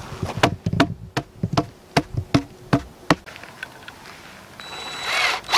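A hammer striking wood repeatedly, about two to three blows a second, stopping about three seconds in. Near the end a cordless drill whirs briefly.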